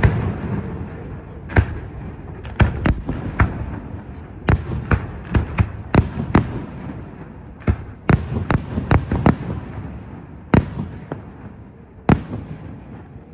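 Fireworks display: aerial shells bursting in an uneven series of sharp bangs, each trailing off in a rumbling echo. The bangs come thickest in a rapid cluster in the middle, then thin out to a last single bang near the end.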